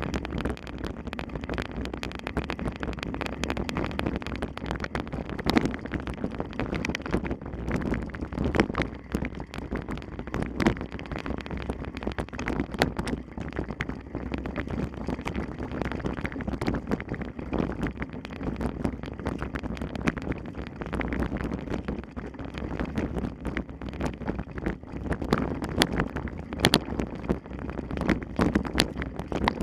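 Wind buffeting the microphone as a steady low rumble, with frequent irregular clicks and knocks throughout.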